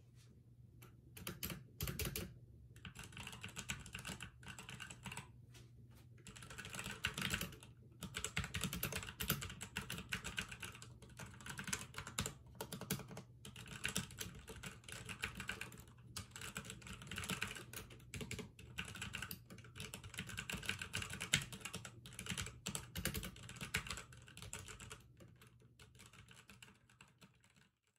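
Typing on the E-Element Z88 mechanical keyboard with Outemu Red linear switches: a quick, irregular patter of key clicks and keycap bottoming out, with short pauses, fading to a few keystrokes near the end.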